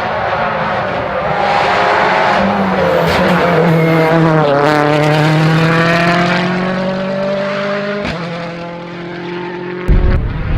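A World Rally Car engine under hard acceleration, its note climbing, dropping sharply once, then climbing again. Near the end it cuts suddenly to a loud low rumble.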